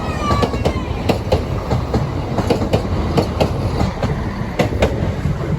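Train passing over a level crossing: a steady low rumble with a rapid, irregular run of sharp wheel knocks over the rail joints.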